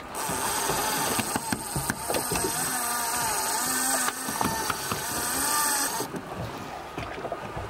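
Conventional fishing reel on a heavy boat rod working: a steady whirr with scattered clicks from the reel mechanism, the whirr stopping about six seconds in.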